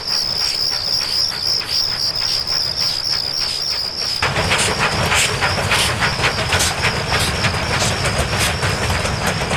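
Crickets chirping in a steady, pulsing trill. About four seconds in, a train's running sound comes in over them: a low rumble with a regular beat.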